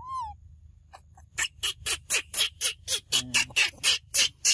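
A short high squeal, rising then falling, at the very start. About a second and a half in, a fast, even run of rasping scrapes begins, about four a second, and it is the loudest sound.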